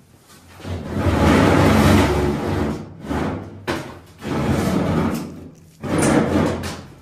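Galvanized sheet-metal stove pipe scraping and rattling as the sections and elbow are slid together and set onto a cast-iron wood stove, in several bouts of a second or two each.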